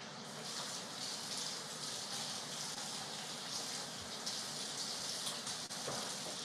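Kitchen tap running into a sink, a steady hiss of water that grows a little louder about half a second in.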